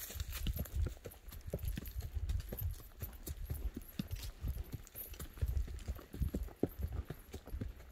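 Footsteps walking over dry fallen leaves on a forest floor: low thuds at a steady walking pace, with crackling and rustling of leaves and twigs underfoot.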